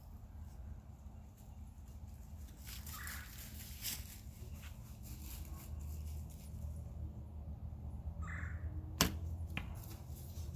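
Bear Apprentice youth compound bow being shot: a few small handling clicks as the arrow is nocked and drawn, then one sharp snap of the string on release about nine seconds in, followed about half a second later by a fainter click. A low rumble runs underneath.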